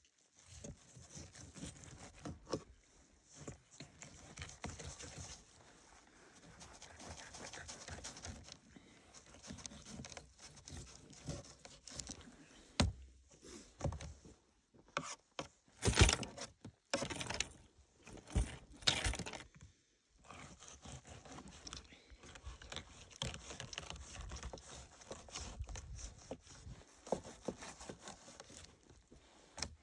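Knife slicing and scraping along a fish on a wooden board while it is filleted, with a few louder knocks and scrapes about halfway through.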